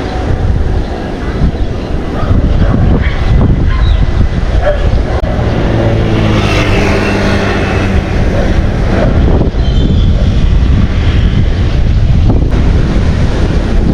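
Wind buffeting the microphone in a loud, rumbling rush, with a low droning tone that comes in for a few seconds in the middle.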